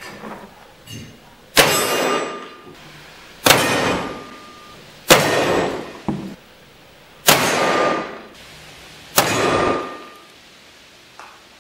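Adams double-action percussion revolver fired five times with black powder, shots about two seconds apart, each with a long echoing tail. A steel plate target rings faintly after each hit.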